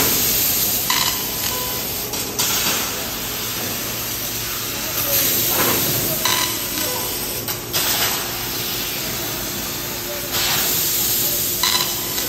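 A 20 kW fiber laser cutting head cutting 20 mm mild steel with compressed air as the assist gas: a steady hiss and sizzle from the air jet and the molten metal, which swells louder for a second or so several times.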